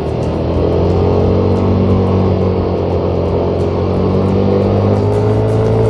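Guitar-backed music over a Yamaha motor scooter's engine and wind rushing on the microphone as the scooter speeds up. The engine note rises slowly near the end.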